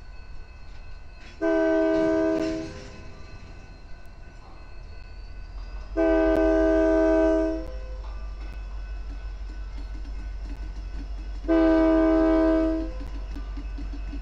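Diesel locomotive air horn sounding three long blasts a few seconds apart, each a chord of several notes, as the locomotive crosses a road at a grade crossing. A low diesel rumble runs underneath.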